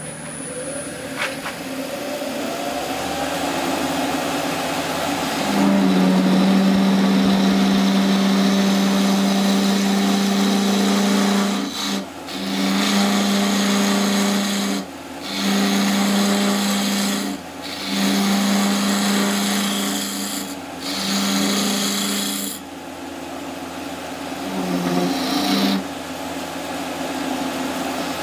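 Wood lathe spinning an exotic-hardwood goblet blank while a hand-held hollowing tool scrapes out the inside of the cup, throwing shavings. The cutting comes in several spells, each carrying a low steady hum, with short pauses between them, and eases off near the end.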